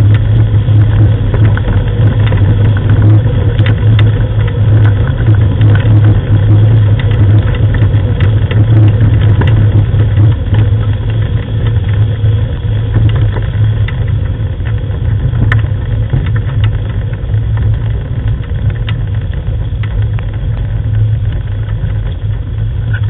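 Steady low rumble of a dog-team training rig rolling over a gravel track, with scattered clicks and rattles.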